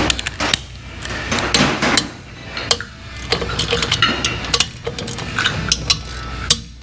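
Metal hand tools and engine parts clinking and knocking against each other during an engine teardown, a run of irregular sharp clicks and taps.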